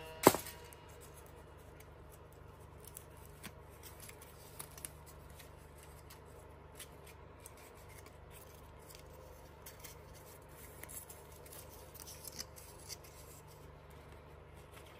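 Faint paper rustling with small scattered ticks as a concertina-folded strip of paper cards is pulled open and handled by hand, after one sharp tick right at the start.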